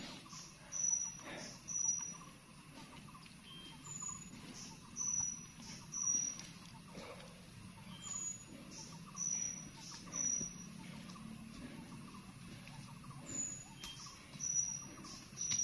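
A forest bird singing a short phrase of two or three high, clear whistled notes, repeated every few seconds. Faint footsteps and pole taps of a hiker on a wet, leaf-covered trail come in between.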